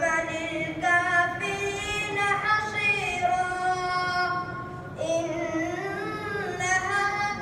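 A child's high voice chanting Quran recitation solo, holding long melodic notes that bend and slide in pitch, with a short pause between phrases about five seconds in.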